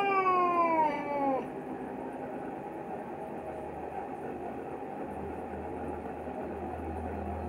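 Male Himalayan cat in heat yowling: one long drawn-out call that falls in pitch and ends about a second and a half in, with a brief break near its end. Afterwards steady background noise, with a low hum from about five seconds in.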